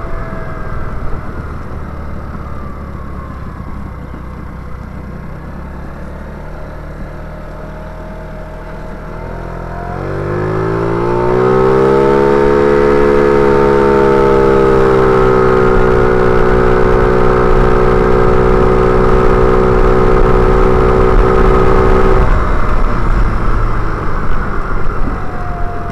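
Small gas scooter engine running while being ridden. About ten seconds in it revs up with a rising pitch and holds at a high, steady speed for some twelve seconds, then drops back.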